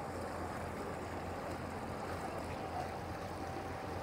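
A motor boat's engine running steadily: a low drone with a faint steady whine, over a constant background hiss.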